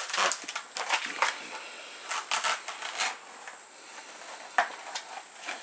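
Fibrous leaf bases of a cabbage palm being snapped and torn away from the heart by hand: irregular crisp cracking and tearing, in clusters.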